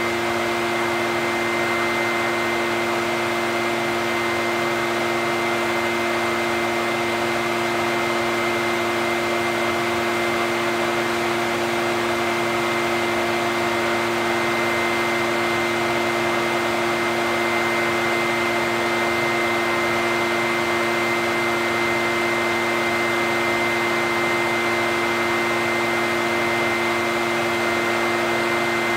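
Echo backpack blower's two-stroke engine and fan running steadily at a constant speed: an even rushing of air with a steady whine over it.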